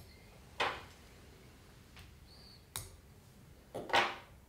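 Quiet handling at a fly-tying vise: a brief soft rustle, a sharp click a little before three seconds in, and a louder brief rustle near the end.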